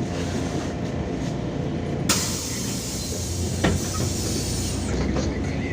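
MAZ-203 city bus heard from inside, its engine and road noise droning steadily. About two seconds in, a sharp knock sets off a burst of compressed-air hiss from the bus's pneumatic system that lasts nearly three seconds, with a click partway through.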